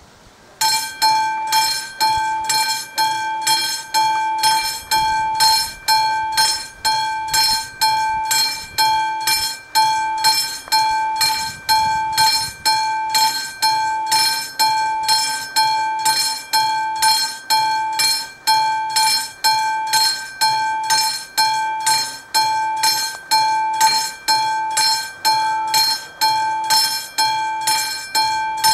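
Electromechanical warning bell of an AŽD 71 level-crossing signal starting up about half a second in and ringing on with rapid strikes in an even, pulsing rhythm: the crossing is warning of an approaching train.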